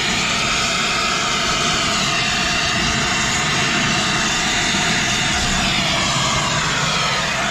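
A brazing torch flame hissing steadily while a pipe joint is heated for brazing. The sound holds at one level, with a slowly sweeping tone in the hiss.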